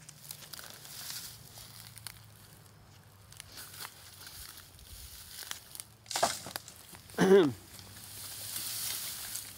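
Dry grass and dead brush rustling and crackling as dead branches are handled and walked through, with a sharp crack about six seconds in. Just after it comes a short, loud sound that falls in pitch, then a longer rustle near the end.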